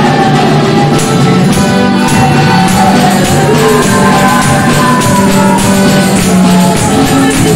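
Group of voices singing a Spanish-language praise song to acoustic guitar, with steady hand clapping on the beat.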